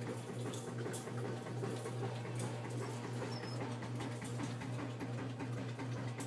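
Eight-week-old doodle puppies scrabbling and pawing against a wire pen, with scattered light clicks and one brief high squeak about three and a half seconds in. Behind them a dryer runs with a steady low hum.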